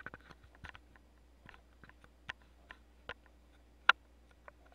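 Scattered faint clicks and taps, about eight of them, over a steady low hum. One click about four seconds in is much louder than the rest.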